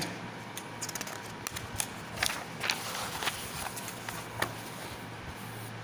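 A paper workbook page being turned by hand: soft rustling with scattered small crackles and clicks.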